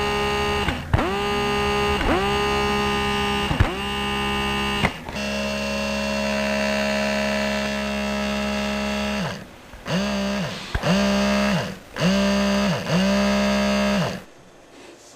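Distorted electronic drone music: a string of held, buzzing notes, each swooping into pitch as it starts, with one long note in the middle. It cuts off shortly before the end.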